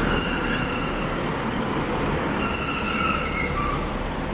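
Northern Class 156 diesel multiple unit running slowly into the platform, its diesel engine and wheels giving a steady rumble, with faint high-pitched wheel squeal coming and going.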